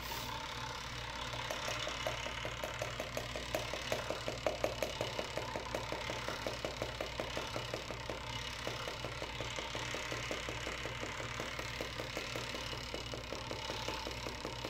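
Light, fast, even tapping on a handheld container of yeast extract powder, several taps a second, as the powder is shaken out a little at a time onto a lab scale's weigh boat. It starts about a second and a half in, is loudest around four seconds in, then goes on a little softer until near the end, over a low steady hum.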